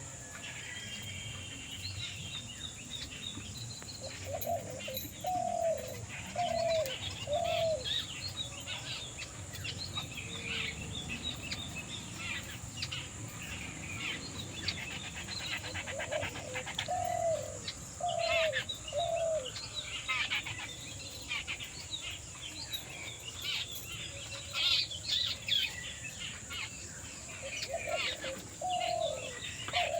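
Mixed birdsong: many small birds chirping and twittering, while a dove coos in phrases of four low notes, three times about twelve seconds apart.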